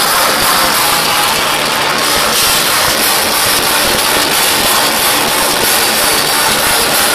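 Metal band playing live at full volume, drums and distorted guitars merged into one dense, steady wash, heard from within the crowd.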